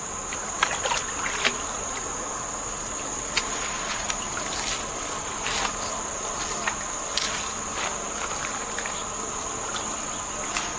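Steady high-pitched insect chorus, crickets or similar, droning without a break, with a scattering of short clicks and rustles over it.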